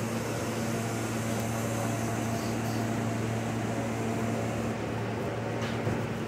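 Steady hum of a stopped R160 subway car's air-conditioning and auxiliary equipment, a low, even drone with two constant tones.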